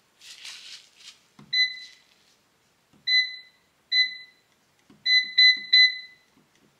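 A dual-basket air fryer's touch control panel beeping six times as its buttons are tapped to set the cooking time, each beep a short clear electronic tone, the last three in quick succession. A brief rustle comes before the first beep.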